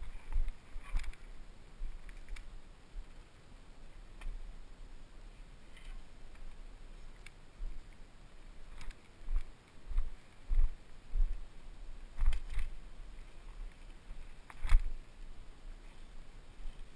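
Mountain bike riding over a bumpy dirt forest trail: a low rumble with irregular knocks and rattles from the bike as it hits bumps, the loudest a little before the end.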